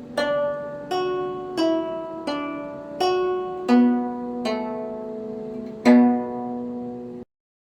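Instrumental music played on a plucked string instrument with a harp-like ring. It is a slow melody of single notes, each one ringing and fading, about one every three-quarters of a second. The music cuts off suddenly near the end.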